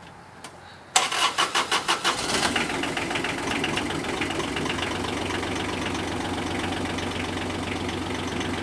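Kawasaki Mule 3010's three-cylinder diesel engine cranked by the starter about a second in, a second or so of rhythmic cranking pulses, then catching and settling into a steady idle.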